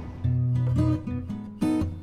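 Outro music led by strummed guitar, its notes and chords starting about a quarter second in.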